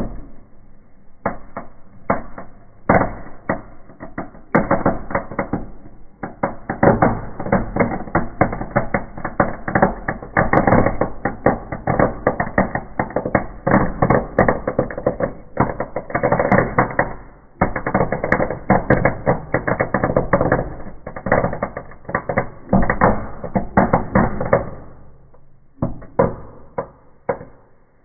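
Firework burning in a fireplace, giving off a dense run of rapid crackling pops that carries on for over twenty seconds, then thins out to a few last separate pops near the end.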